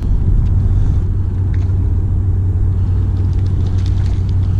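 A loud, steady low rumble, with a few faint light clicks over the second half from a spinning reel being wound in.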